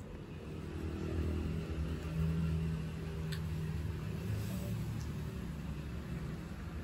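Cat purring steadily close to the microphone while being stroked.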